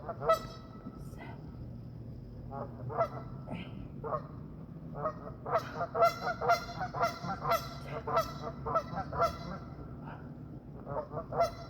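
A run of short, repeated animal calls, a few scattered at first and then coming quickly one after another through the middle stretch.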